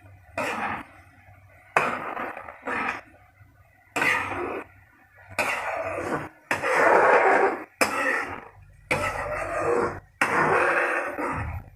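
A metal ladle stirring and scraping a wok of boiling soy-and-sugar sauce, in irregular strokes with short pauses between them, the longest a second or more.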